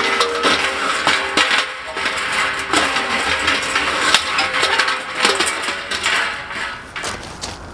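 Steel folding fire pit's frame and mesh panels clinking and rattling as it is handled, in a run of sharp metallic clicks. Light music with short plucked-sounding notes plays underneath.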